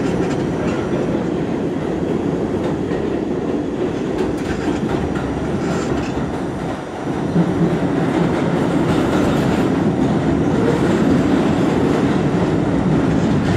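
R68A subway car running at speed through a tunnel, heard from inside the car: a steady rumble of steel wheels on rail with clicking over rail joints. The rumble dips briefly about seven seconds in, then returns a little louder.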